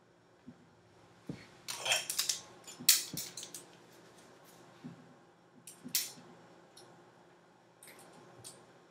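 Hair styling on a mannequin head: a comb and hands working through the hair, making a few short scratchy rustles and light clicks. They are loudest from about two to three and a half seconds in and again around six seconds.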